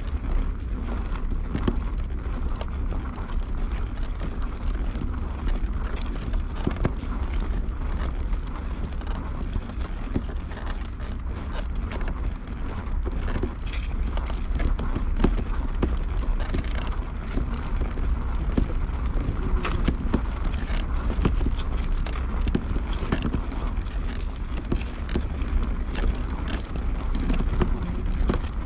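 Footsteps on pavement, many short sharp steps, over a steady low rumble of wind on the microphone.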